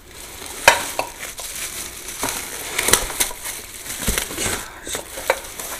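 Clear plastic wrapping crinkling and crackling as hands pull it off a lamp base, with a few sharper crackles.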